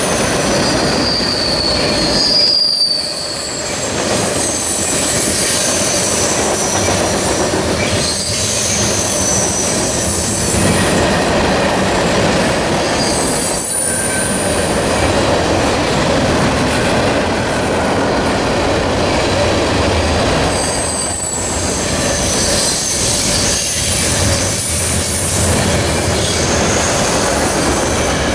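CSX freight train's cars rolling past close by: a loud, steady rumble of wheels on rail, with high, wavering wheel squeals coming and going.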